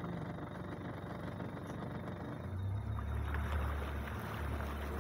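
A boat's motor running steadily, growing louder about two and a half seconds in, with a hiss of water alongside.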